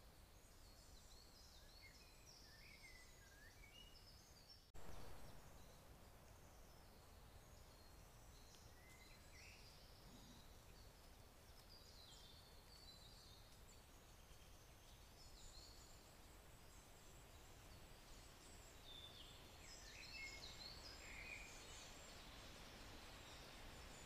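Faint woodland birdsong: several small birds chirping and trilling on and off over a low, steady background hiss. About five seconds in, the background noise jumps up briefly and fades.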